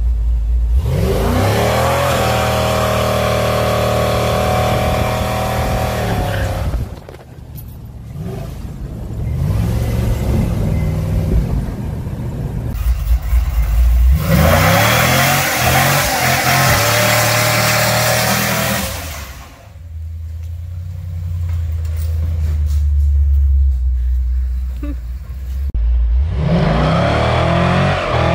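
Pickup truck's rebuilt 5.3 L V8 accelerating hard three times, the engine note climbing in pitch at the start of each run, with steadier, quieter running between the runs.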